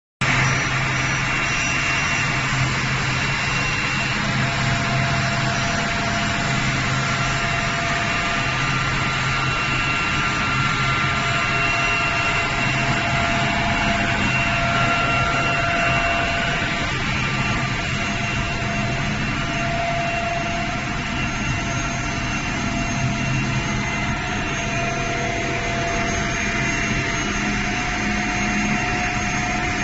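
PE plastic pipe extrusion line running: a steady machinery noise, a broad hiss carrying several constant hums and tones that holds an even level throughout.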